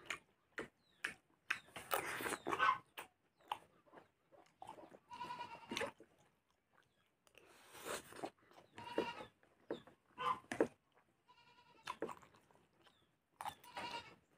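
Eating sounds: a steel spoon clicking and scraping on a metal plate, and chewing. Several high, wavering calls sound in the background between the clicks.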